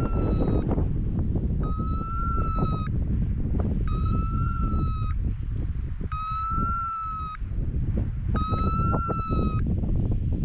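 Hunting dog's beeper collar sounding in point mode: an electronic beep about a second long, repeating roughly every two seconds, the signal that the English pointer wearing it has stopped and is holding point. Wind rumbles on the microphone underneath.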